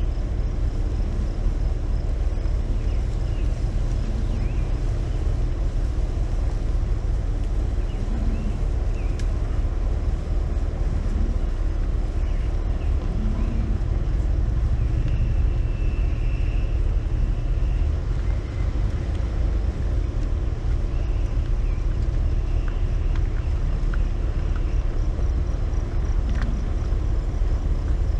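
A vehicle's engine idling steadily, with a few short low grunts from American bison in the herd around it and some faint bird chirps.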